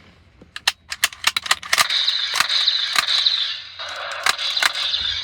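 Plastic toy gun: a quick run of sharp clicks from its trigger and action, then its built-in electronic gunfire sound effect playing loudly for about three seconds with more clicks over it.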